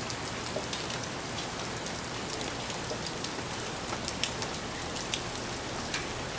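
Steady rain falling, with scattered sharp ticks of drops striking.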